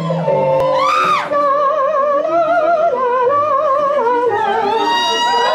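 Performance music with a high, operatic-style melody: held notes with a wide vibrato, a swoop upward just after a second in, and a long steady note near the end, over lower accompaniment.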